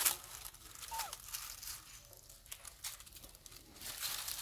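Dry leaves and twigs crackling and rustling as the monkeys shift about on the leaf litter, with one brief faint squeak about a second in.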